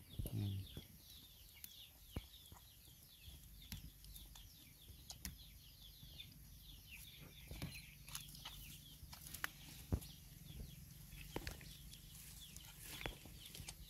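Faint, rapid high-pitched peeping of chicks keeps on throughout, with scattered sharp clicks and rustles as puppies eat from a bowl and nose through dry leaf litter; the loudest click comes about ten seconds in.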